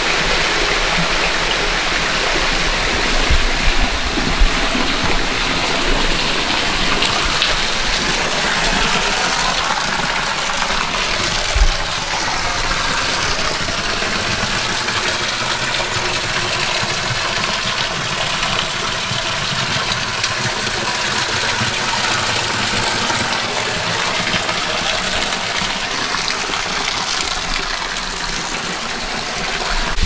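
Steady splashing rush of a thin waterfall pouring off a rock overhang onto stones and a shallow pool, with a few soft low knocks in the first half.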